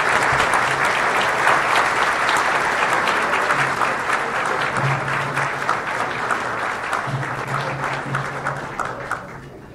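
Audience applauding to welcome a speaker, with many hands clapping at once; the clapping dies away near the end.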